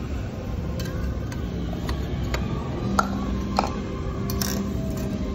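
Restaurant room noise with a few sharp clinks of dishes and utensils, the loudest about three seconds in, over faint background music.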